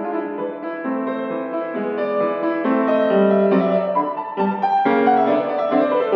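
Yamaha grand piano playing a solo piece of chords and moving melody notes in the middle register, written to sound light and comic like the bird of a cuckoo clock.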